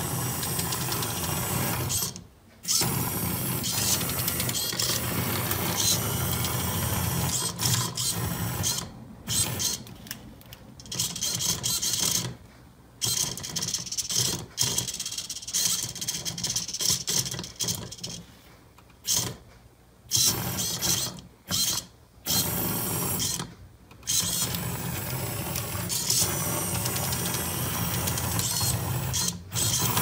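Small electric gear motors of a TECHING DM518 metal robot kit driving its steel chain tracks, a mechanical whirring and clattering that stops and starts again many times as it is steered.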